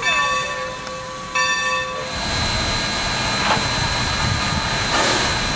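The steam whistle of 2-8-2 Mikado steam locomotive No. 45 sounding two blasts, the second about a second and a half in. Then, from about two seconds in, a steady hiss of steam with a low rumble from the standing locomotive.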